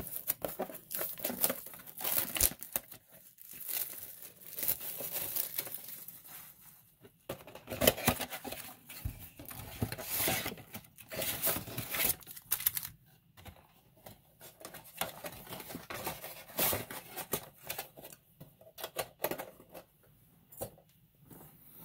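A sealed trading-card box being torn open, its plastic wrap and cardboard crinkling and tearing, with foil card packs rustling as they are taken out and set down. It comes in irregular crackly bursts with short pauses.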